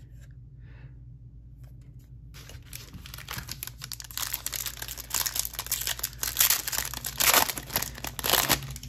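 Foil wrapper of a 2022 Panini Capstone baseball card pack crinkling and being torn open by hand. It starts about two and a half seconds in and is loudest near the end.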